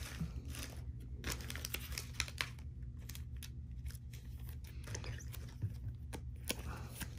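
Trading cards being handled: a string of short, faint swishes, scrapes and clicks as the cards slide against each other and against plastic.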